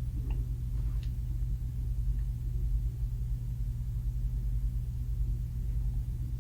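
CNC folding machine running with a steady low hum, with a few faint clicks about a second in as the sheet is handled and bent.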